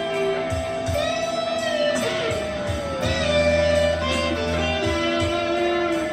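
Background music: a smooth instrumental track with a sustained, bending lead melody over guitar chords and bass.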